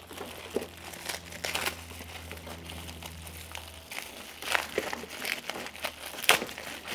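Clear plastic packaging bag crinkling as it is handled, with irregular crackles and a few louder rustles.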